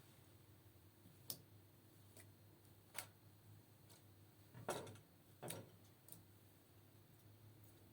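Faint clicks and taps of small hard objects being handled, four spread over several seconds with the loudest about halfway, over a low steady hum.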